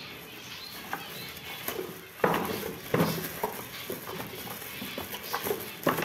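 Plywood nest boxes handled and knocked together, with a few sharp wooden knocks, the loudest about two and three seconds in and again near the end, over light rustling.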